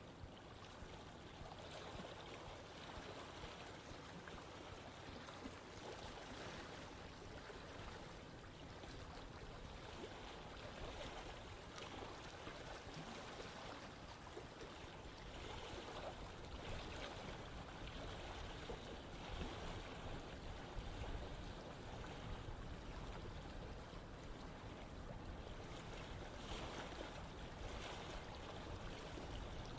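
Running water flowing steadily, an even rushing sound that swells and eases a little from moment to moment.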